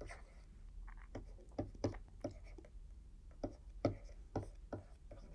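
Stylus writing on a pen tablet: soft taps and short scratching strokes, about a dozen faint clicks at uneven intervals.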